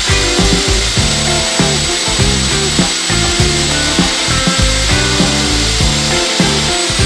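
Concrete core drill cutting, a steady grinding with a high whine, heard together with background music with a steady beat.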